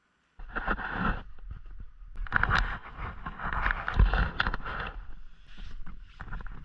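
Scraping and crunching through snow in two long stretches, the second the louder, over a low rumble.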